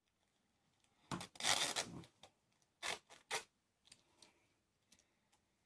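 A zip pulled down on a fleece jacket in one longer scratchy run, then a couple of short rustles of fabric as the jacket is pulled open and shrugged off.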